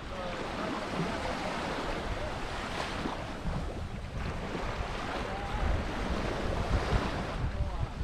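Waves washing onto a sandy beach, with wind gusting on the microphone, strongest in the second half, and faint voices.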